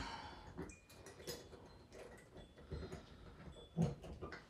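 Faint, irregular small clicks and rubbing of a rubber seal ring being worked onto the glass lid of a clip-top preserving jar, and the lid being pressed down onto the jar.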